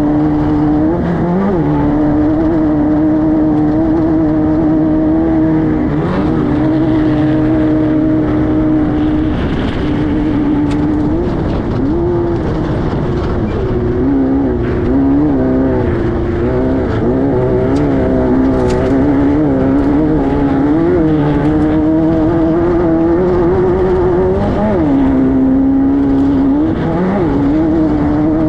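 A Class 5-1600 off-road race car's air-cooled 1600 cc VW flat-four engine running hard at high revs. Its pitch drops and recovers several times, and clicks and knocks come through.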